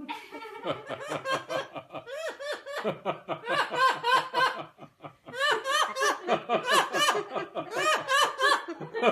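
Rapid laughing in long runs of short ha-ha notes, each rising and falling in pitch, about five or six a second, with brief breaks twice.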